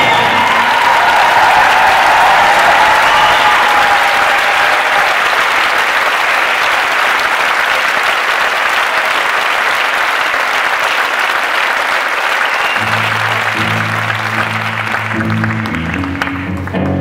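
An audience applauding steadily, the clapping slowly thinning. About three-quarters of the way through, an electric guitar starts playing low, stepping notes under the applause.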